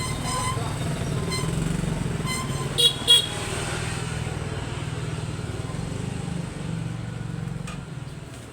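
Street traffic: a motor vehicle's engine running close by, with two short horn toots in quick succession about three seconds in.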